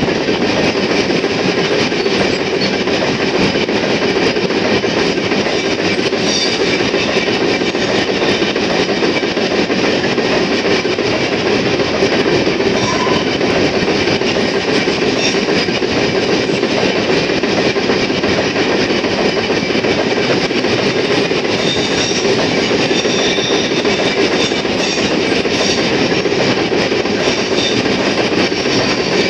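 Empty iron-ore hopper wagons of a long freight train rolling past close by at speed. Wheels on rail and the empty steel car bodies make a steady, loud rumble and rattle, with a few faint, brief high wheel squeals now and then.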